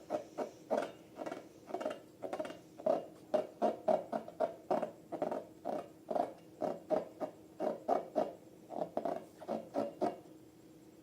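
Slime being squeezed and kneaded by hand, a quick run of short squelches about three or four a second that stops near the end.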